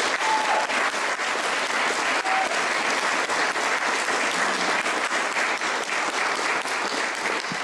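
Audience applauding, a dense steady clapping that holds throughout and begins to die away at the very end.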